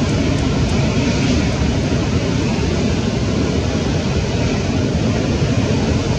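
Steady, loud rushing roar of breaking ocean surf and whitewater, with no separate crashes standing out.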